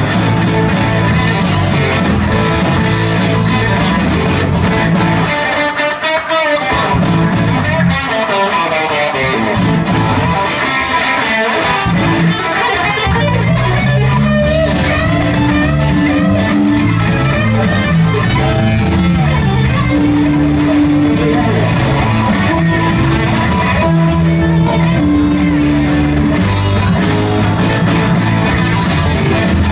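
Live rock band playing an instrumental passage on electric guitar, bass guitar, drum kit and keyboard, with no singing. The low end drops away for several seconds in the middle, then the full band comes back in about halfway through.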